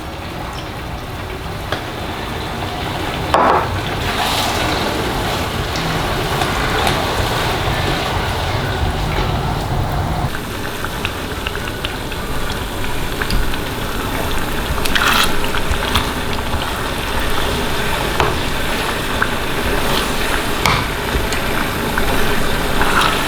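Chilli jam of tamarind water, brown sugar and tamari cooking down in a small pan, sizzling and bubbling steadily, with a few short knocks or scrapes from stirring.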